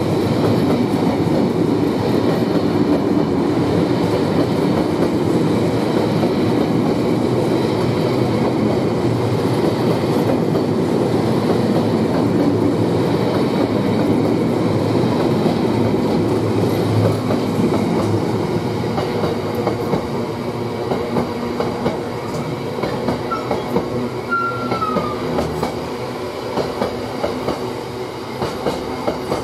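Freight train of bogie hopper wagons rolling past close by: a steady rumble with the clickety-clack of wheels over rail joints. The sound eases off in the last third as the end of the train goes by, and single wheel beats stand out more.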